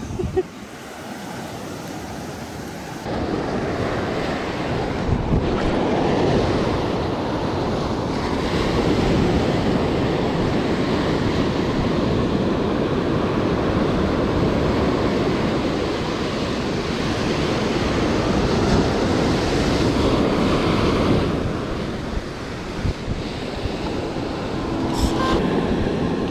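Ocean surf breaking and washing up a sandy beach: a steady rush of water noise that swells and eases. It grows louder about three seconds in.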